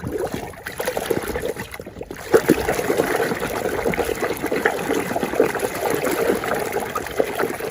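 Water running and splashing over a muddy plastic toy as it is washed clean, getting louder about two seconds in.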